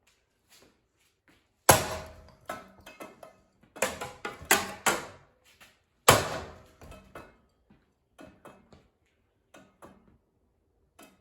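A series of sharp knocks and bangs on a ceiling fan, each with a short ringing tail. The two loudest come about two seconds in and about six seconds in, with a quick run of hits around four to five seconds in and fainter clicks between.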